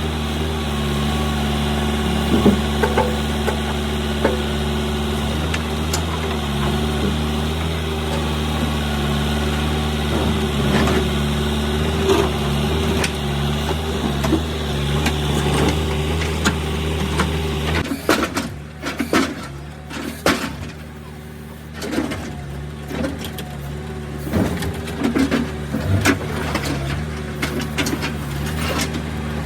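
Diesel engine of heavy farm or earthmoving machinery running steadily. About two-thirds of the way through, its deep low note drops away and a string of irregular knocks and clatters comes in over the remaining engine sound.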